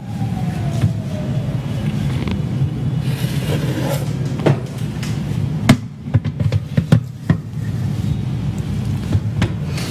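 Built-in oven door and baking tray being handled as the sponge goes in to bake: a few sharp clicks and knocks from about four to seven seconds in, over a steady low hum.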